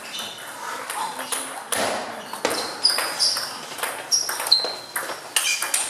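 Table tennis rally: the celluloid ball clicks sharply off the rubber bats and pings off the table, in an irregular run of quick ticks.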